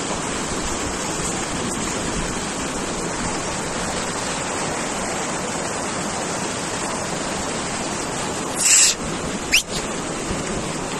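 Fast, shallow mountain stream rushing steadily over rocks. Near the end a short loud hiss and, about a second later, a brief high sliding whistle cut through the water noise.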